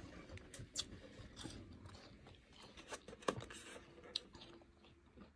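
Soft powdery ice being chewed, a run of irregular quiet crunches with a sharper crack about three seconds in and another about a second later.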